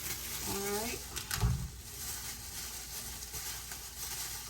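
Dry corn husks rustling and crackling as an ear of corn is handled and shucked by hand, with one dull thump about a second and a half in.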